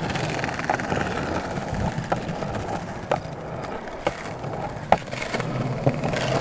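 Skateboard wheels rolling over rough concrete with a steady grinding rumble, broken by several sharp clacks of the board spaced roughly a second apart.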